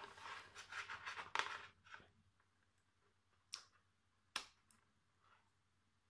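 Hands handling a small amplifier circuit board and its DC power plug on a tabletop: faint scraping and rustling for the first two seconds, then two light clicks under a second apart.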